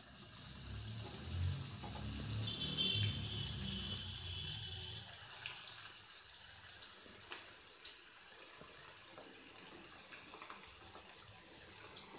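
Vegetable Manchurian balls deep-frying in hot oil in a kadai: a steady sizzling hiss with scattered small pops and crackles.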